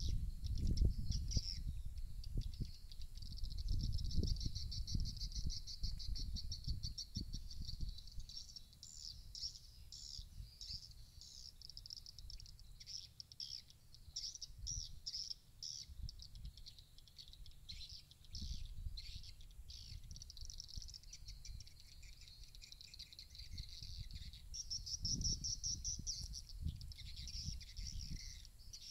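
Swiftlets twittering in a dense, fast chatter of high chirps from a swiftlet house. Gusts of wind rumble on the microphone, strongest in the first several seconds and again near the end.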